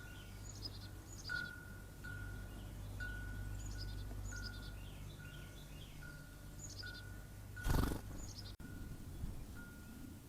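Songbirds chirping: short, high, downslurred notes in quick little runs, repeating every second or two, over a steady low hum. A steady chime-like tone sounds on and off throughout, and a brief loud rush of noise cuts in about three-quarters of the way through.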